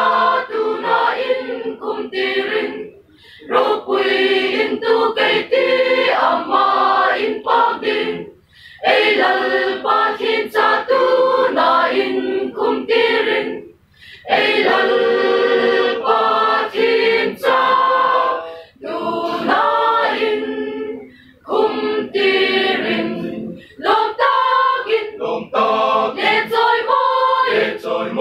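Mixed choir of women's and men's voices singing unaccompanied, in sustained phrases broken by short pauses for breath every few seconds.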